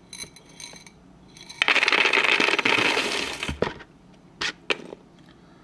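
A handful of metal paper clips poured onto a pile, clattering densely for about two seconds, then two single clinks.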